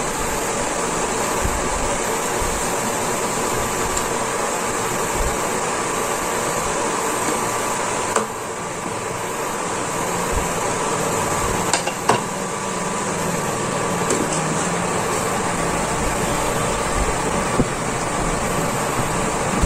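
Pot of fish soup at a rolling boil: a steady rushing, bubbling hiss, with a few sharp knocks around the middle and once near the end.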